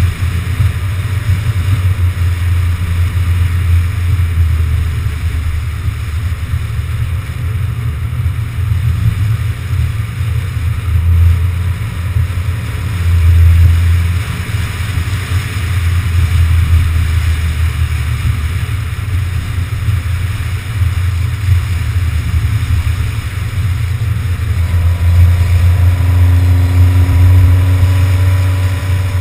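A moving car heard through an action camera mounted outside the car: heavy wind buffeting the microphone over a low, steady road and engine rumble. A faint steady hum joins in near the end.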